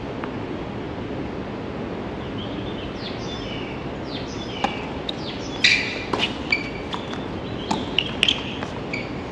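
Tennis ball being struck by racquets and bouncing on a hard court during a serve and rally: a string of sharp pops starting about halfway in, the loudest just after the serve. Short high squeaks or chirps come before the pops and among the first of them, over a steady outdoor hiss.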